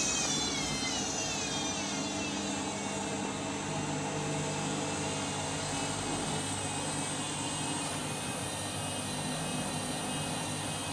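Candy washing machine's drum motor winding down from spin with a falling whine, then running on with a steady hum. The machine has gone into suds lock, clogged up with too many suds.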